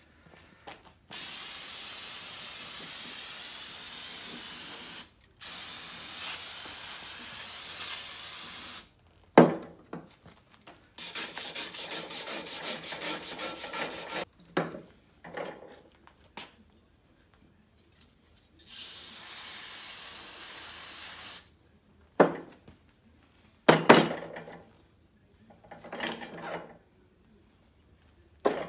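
Aerosol spray, likely degreaser, hissing in four long bursts of a few seconds each, each starting and cutting off sharply; the third flutters rapidly. Between bursts a wooden stick scrapes and knocks on the oily housing as oil leaked from the PTO shaft is cleaned off.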